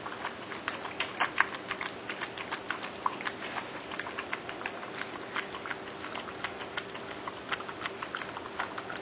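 A dog eating dog food from a glass bowl: chewing and smacking, with irregular sharp clicks several times a second.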